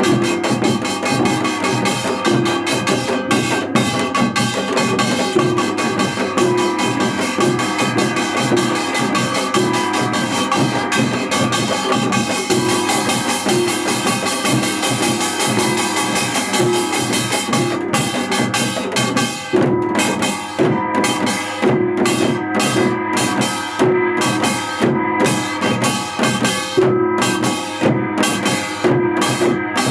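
Music with a drum kit keeping a steady beat under sustained pitched notes; about two-thirds of the way through, the cymbal-like high wash drops away and the beat turns choppier.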